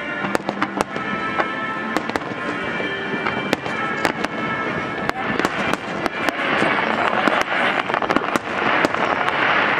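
Fireworks display: a rapid string of sharp bangs and crackles that grows denser about five seconds in, with music playing underneath.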